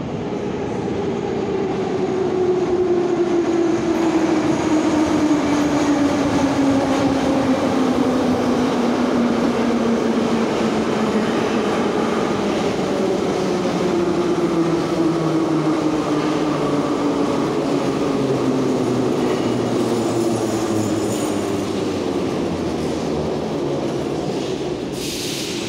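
Metro train pulling into an underground station: the rumble of wheels on the rails with the traction motors' whine falling slowly in pitch as it brakes, twice over. There is a brief hiss near the end as it comes to a stop.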